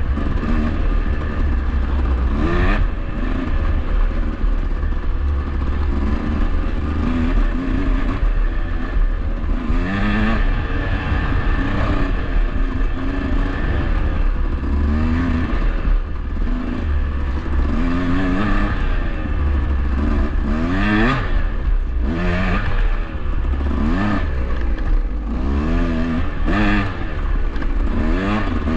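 KTM dirt bike engine running on a trail ride, heard from the bike itself. Its pitch rises and falls again and again as the throttle is opened and closed.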